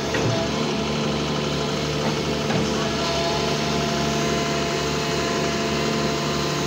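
Doosan DX140 wheeled excavator's diesel engine idling steadily.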